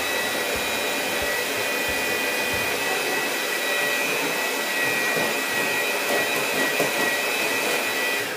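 Electric hand mixer running steadily, its motor giving a high whine as the beaters churn a mixture in a small plastic tub; it switches off near the end.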